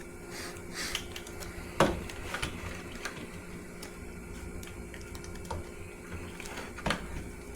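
Gloved hands stretching and winding a wet, resin-soaked fiberglass repair bandage around a plastic pole, with sticky crackles and scattered sharp clicks as the tape is pulled tight. A faint steady hum runs underneath.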